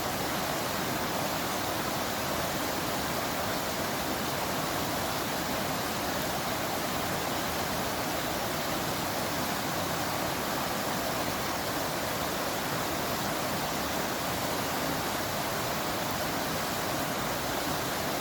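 Waterfall: falling water making a steady, even noise that does not change.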